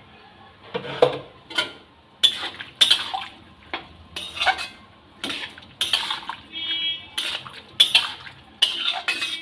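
Flat metal spatula scraping and clinking against an aluminium kadai while stirring sliced bottle gourd in a little water, about two strokes a second.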